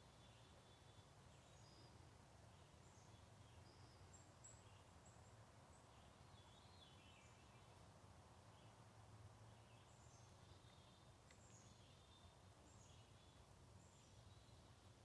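Near silence with faint, scattered chirps and short downward-sweeping calls from several birds, repeating throughout over a low steady rumble.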